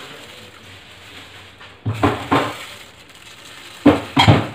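Dishes knocking: a plate of sliced boiled eggs clattering against the serving tray, two pairs of sharp knocks, about two seconds in and again near the end.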